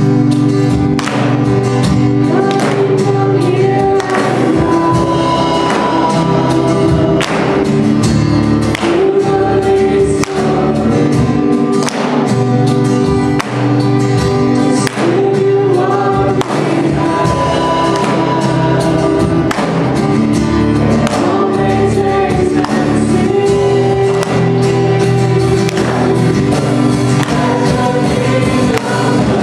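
Live worship band playing a contemporary worship song: a woman sings the lead with a second female voice, over drums keeping a steady beat, acoustic and electric guitars and bass guitar.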